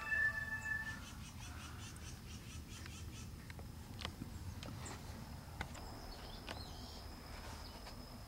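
Outdoor rural ambience: a steady high insect drone, with a short pitched bird-like call in the first second and a quick pulsing high chirp series soon after. A few light clicks of a tool working stony soil are scattered through it.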